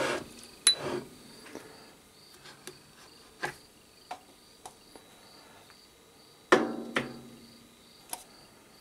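Metal tooling being handled and set down at a lathe: scattered clicks and knocks as a dial test indicator and its magnetic stand are lifted away, the loudest about six and a half seconds in with a brief ring. Behind them a faint high-pitched chirp pulses about three times a second.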